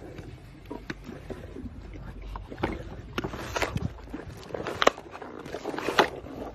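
Apples landing one after another in a hippo's wide-open mouth: irregular thuds and knocks that come faster and louder as the pile grows, the hardest hits about five and six seconds in.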